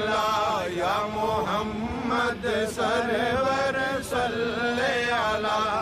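Men chanting a Muslim devotional zikr refrain in a slow, sung line, phrases rising and falling over a held low note.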